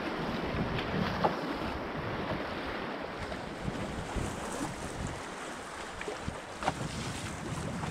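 Rushing, choppy river water around an open canoe, with wind buffeting the microphone. A few short sharp knocks stand out, about a second in and near the end.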